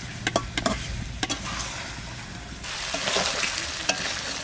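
Duck meat and potatoes sizzling in oil in a metal kadai as a metal spatula stirs them, with several sharp scrapes and knocks against the pan in the first second or so. The sizzling grows louder and denser about two-thirds of the way through.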